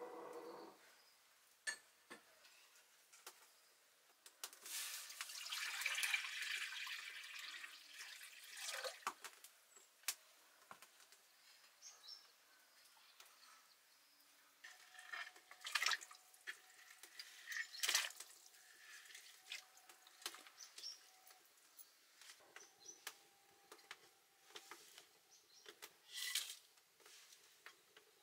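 Water pouring and splashing for a few seconds about five seconds in, then scattered light clicks and knocks.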